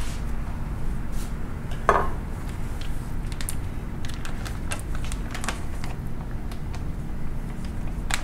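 Plastic vacuum bag crinkling and metal tongs clicking as cooked steak is pulled out of a cut-open sous vide bag, with one louder clack about two seconds in. A steady low hum runs underneath.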